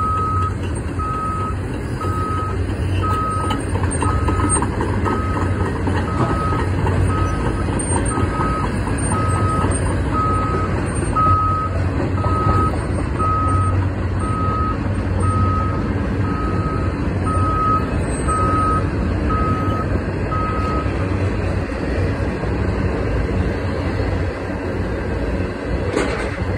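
Travel alarm on a Cat excavator beeping steadily about once a second as the machine tracks onto a truck. Underneath is a steady low rumble of diesel engine and a passing freight train. The beeping stops well before the end, and a couple of sharp clanks come near the end.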